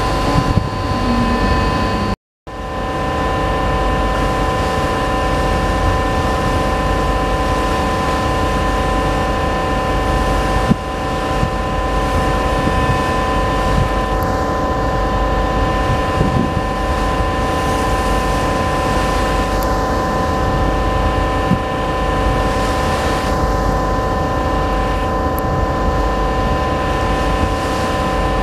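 Steady drone of a ship's engines: a low rumble under several constant whining tones, with wind on the microphone and rushing water. The sound cuts out briefly about two seconds in.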